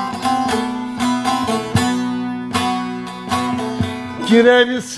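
Bağlama (Turkish long-necked lute) played with a plectrum: an instrumental passage of plucked notes over a steady ringing drone. A man's singing voice comes in near the end.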